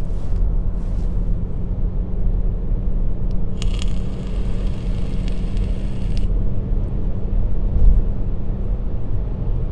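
Car cabin noise while driving: a steady low engine and road rumble with a constant hum. A hiss rises over it from about four to six seconds in.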